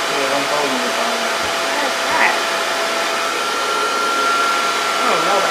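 Handheld hair dryer running steadily on its hot setting, blowing air to inflate a balloon. Its whine steps up to a higher pitch about three seconds in.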